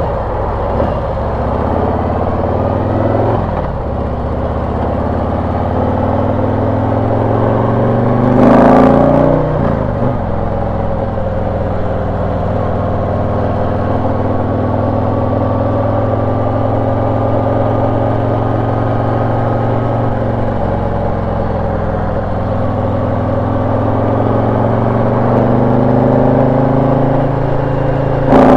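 Harley-Davidson V-twin running through a Rinehart exhaust fitted with FuelMoto tunable inserts, heard from the saddle while riding; a throaty note, not very loud. The engine's pitch climbs gradually and drops about two-thirds of the way through, and a brief louder rush comes about nine seconds in.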